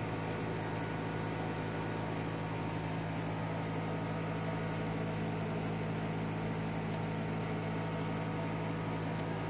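Steady low mechanical hum with an even hiss.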